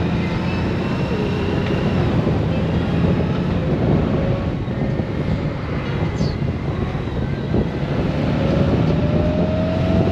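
Honda Gold Wing's flat-six engine running steadily while riding, under wind and tyre noise at the microphone; a faint tone rises slowly near the end.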